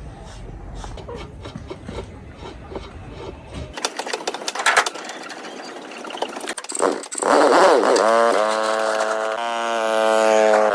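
Clicks and taps over a low rumble. About four seconds in, the rumble cuts off suddenly. From about seven seconds in, music with held pitched notes comes in and is the loudest sound.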